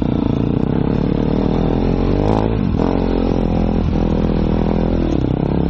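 Enduro dirt bike engine running close up under its rider at low speed. The revs rise about two seconds in, fall back, and dip briefly again near four seconds as the throttle is worked.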